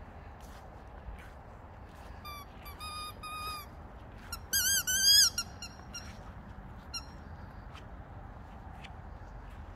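Squeaky dog toys squeaked by two boxer dogs biting down on them. There is a run of short squeaks about two seconds in, then louder squeaks that waver in pitch around the middle, and a few faint ones after.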